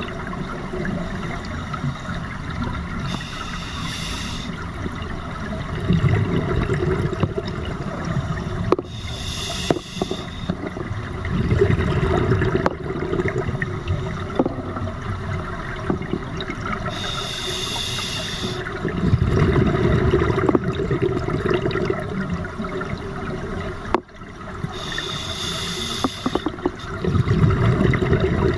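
Scuba diver breathing underwater through an open-circuit regulator: four slow breaths, each a short hissing inhale followed by a longer bubbling exhale, about every seven to eight seconds.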